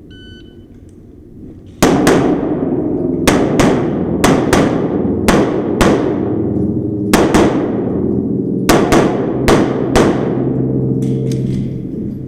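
A shot timer beeps just after the range command "stand by". About two seconds later a semi-automatic pistol fires a stage string of about fourteen shots, mostly in fast pairs, each shot echoing.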